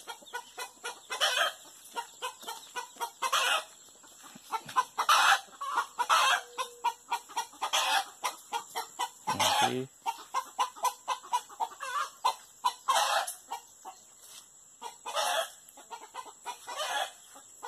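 Agitated chickens calling loudly: repeated drawn-out alarm cackles about every two seconds, with rapid clucking in between. The flock is stirred up, which points to something having disturbed them.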